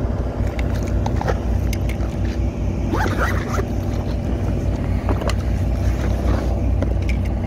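Steady low engine drone from nearby marine construction work, with scattered clicks and rustles of a zippered tackle case and backpack being handled.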